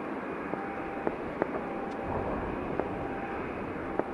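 Steady aircraft engine noise, with a few sharp clicks and several short mid-pitched beeps on top.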